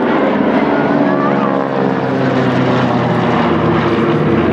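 Douglas DC-3 Dakota's twin radial piston engines and propellers passing overhead, a loud steady drone whose pitch falls slowly as the plane goes by.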